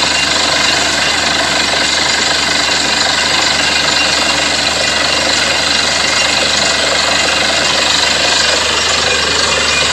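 Borewell drilling rig running at work: a loud, steady mechanical din without pauses.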